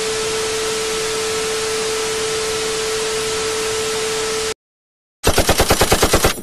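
TV static: a steady loud hiss with a steady tone in it, cutting off suddenly after about four and a half seconds. After a short gap, a burst of rapid machine-gun fire, about ten shots a second, starts near the end.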